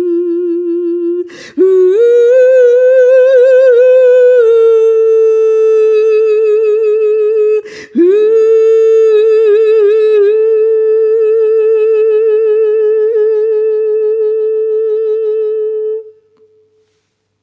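A woman's wordless vocal toning: long held notes with a wavering vibrato, each sustained for several seconds. A quick breath comes near the start, after which the pitch steps up, and another about halfway through; the voice stops shortly before the end.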